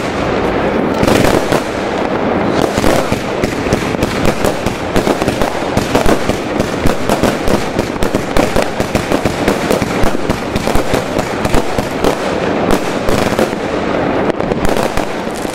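Sirius consumer firework battery (cake) firing: a continuous stream of shots and dense rapid pops and crackles from the bursting stars, with no pause.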